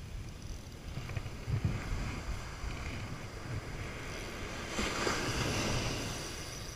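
Surf washing up the beach with wind rumbling on the microphone; a louder rush of a breaking wave swells up about five seconds in and fades.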